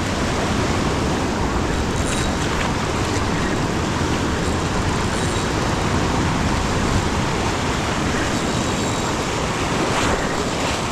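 Steady rush of ocean surf, with some wind on the microphone.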